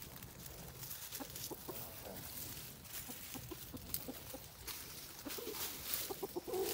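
Hens clucking softly: a loose string of short, low clucks that come more often toward the end.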